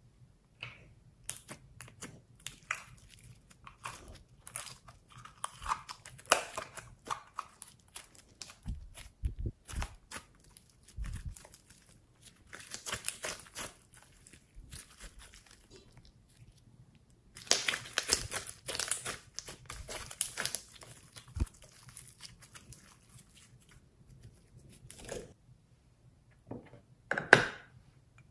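Glossy slime handled and stretched by hand, giving sticky crackles, pops and clicks in irregular spurts, with a thicker run of crackling a little past the middle. A louder knock comes near the end.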